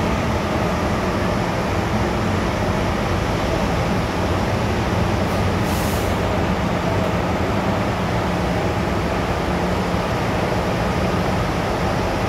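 MTR M-Train electric multiple unit running at steady speed, heard from inside the carriage: an even rumble of wheels on rail over a low steady drone. A brief high hiss comes about six seconds in.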